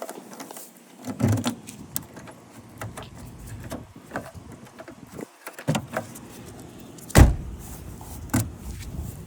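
Clicks, knocks and rattles of hands working on a car door, with a loud thump about seven seconds in and a smaller one near the end.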